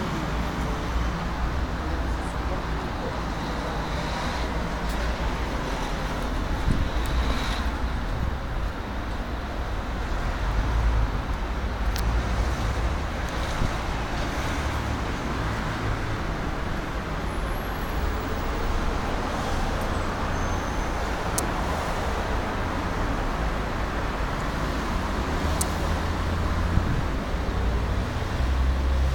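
City street traffic: a steady wash of cars running and passing on a busy road, with a continuous low rumble and a few faint clicks.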